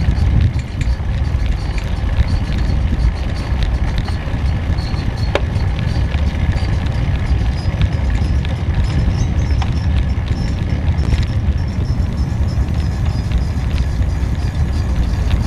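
Wind buffeting the microphone over a steady low rumble from riding along a paved road.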